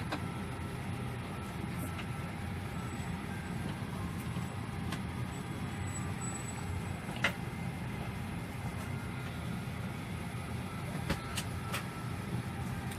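Steady low drone of an airliner cabin, the hum of the jet engines and air system, with a few faint clicks.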